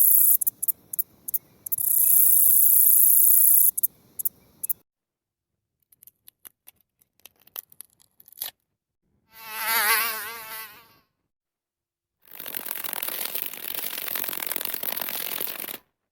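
A run of separate insect sound effects. First comes a very high, shrill insect buzz that stutters on and off before stopping, then a few faint clicks. About nine seconds in there is a short pitched buzz that wavers, like a flying insect, and near the end a steady hissing buzz.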